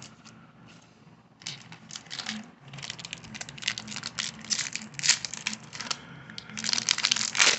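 Baseball card pack wrapper crinkling and tearing as a pack is opened by hand. The rustles come in irregular bursts that start about a second and a half in and are loudest near the end.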